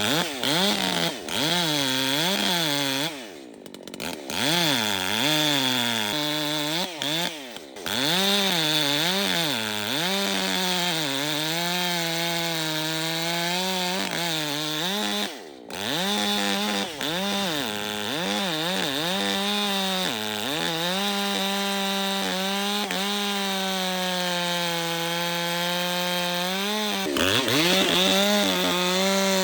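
Ported 60 cc Echo CS-620P two-stroke chainsaw cutting red oak, its engine pitch dipping and rising again and again as the chain bites and frees up. There are a few sudden short drops in sound, then the pitch holds steady for several seconds before revving up near the end.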